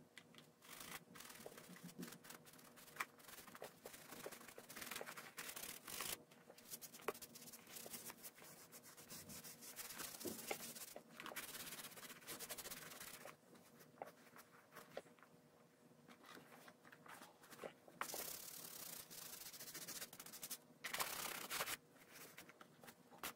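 Toothbrush bristles scrubbing dried mud off a leather riding boot in quick short strokes, then, near the end, a towel rubbing over the leather.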